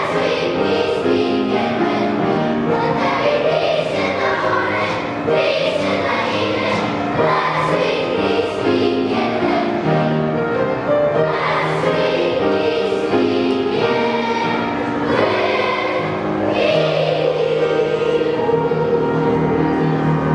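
Elementary school children's choir singing a song with instrumental accompaniment.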